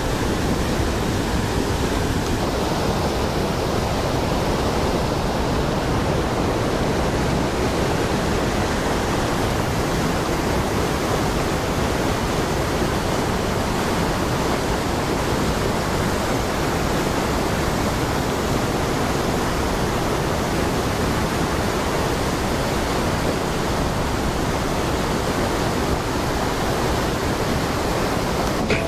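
Fast river rapids rushing over boulders: a steady, unbroken noise of water.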